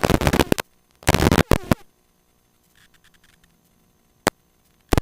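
Two loud bursts of radio static over the aircraft headset, followed by a few sharp clicks, then the line goes almost dead with a single click near the end.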